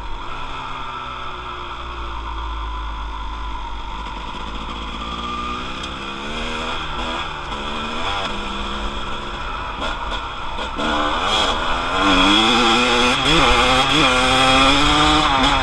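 Dirt bike engine revving up and falling back again and again as the rider works the throttle and gears at speed, with wind rumbling on the microphone. From about eleven seconds in it gets louder and higher-pitched.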